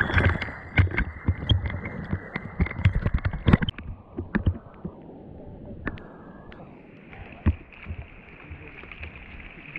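Sea water splashing and sloshing right at the camera around a surfer on her surfboard in choppy water. Many sharp splashes come in the first few seconds, then it settles to a steadier wash of water.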